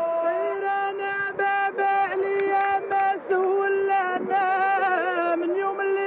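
Background music from an Arabic song: a melody of long held notes with a wavering vibrato, heard between its sung lines.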